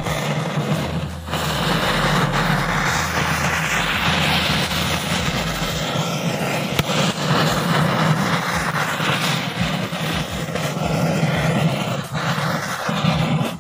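Zameen chakkar ground-spinner firework burning in a dirt pit: a loud, steady hissing rush of sparks that swells about a second in and holds for some twelve seconds. It burns at full pressure but, boxed in by the hole, doesn't spin.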